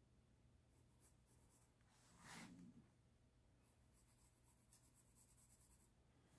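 Faint scratching of a drawing tool sketching on its surface in short strokes, with a louder rustle about two and a half seconds in and a quicker run of fine scratching a little past halfway, over a low steady hum.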